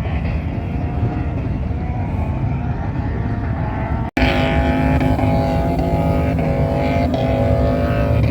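Engines of off-road vehicles running and revving, cut off abruptly about four seconds in and picking up again with a steadier, stronger engine note that shifts in pitch every half second or so.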